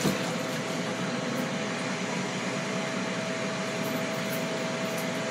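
Steady fan-type mechanical hum with a thin, unchanging whine running through it.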